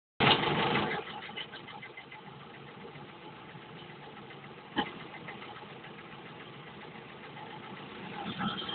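T-25 tractor's air-cooled two-cylinder diesel running as its front loader lifts a heavy bucket of concrete slabs. It is louder for the first second, there is a single sharp knock about five seconds in, and it grows louder with a high whine near the end.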